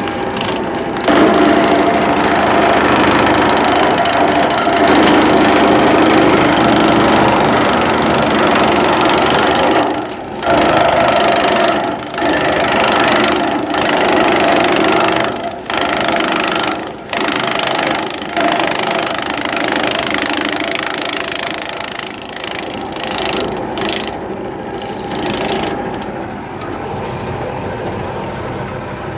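Grass chopper machine running, its blades chopping grass: a loud, steady mechanical clatter that gets louder and rougher about a second in, drops briefly several times in the middle, and eases off toward the end.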